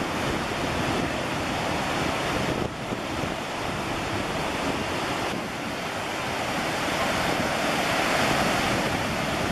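Whitewater river rapids rushing: a steady, even noise of fast water.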